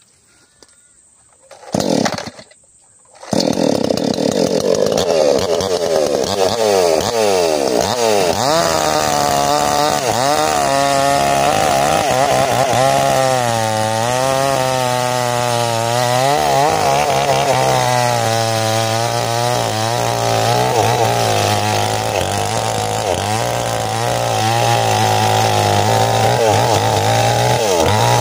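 Mini chainsaw: a short burst about two seconds in, then the engine starts about three seconds in and runs loudly, its pitch rising and falling as it revs and bogs under load while cutting into the ironwood trunk.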